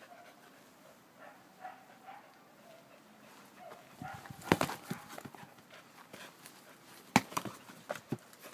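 A corgi at play with a ball on grass: faint short high-pitched sounds in the first three seconds, then two clusters of sharp knocks, about four and a half and seven seconds in, the second the loudest.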